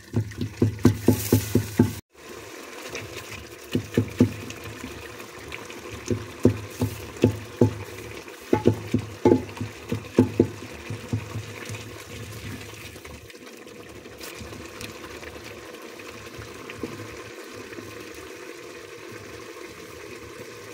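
Thick tomato stew in a metal pot over a wood fire, stirred with a long wooden spoon. It gives runs of quick wet plops and slaps in the first half, then settles to a steady, quieter hiss as it simmers.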